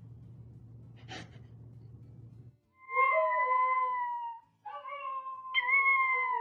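A pet animal giving two long, drawn-out calls in the second half, the second longer than the first, each sliding slowly down in pitch. Before them there is only a faint low hum.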